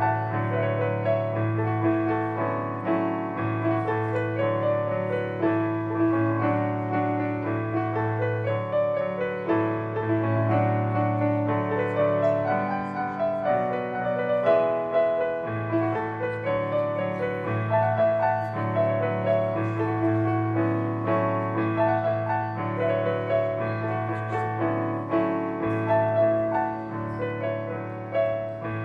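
Live instrumental band music led by a digital stage piano playing a flowing melodic line over sustained low bass notes.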